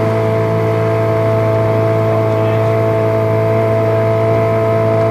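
A small boat's engine running at a steady speed, an even, unchanging drone heard from on board.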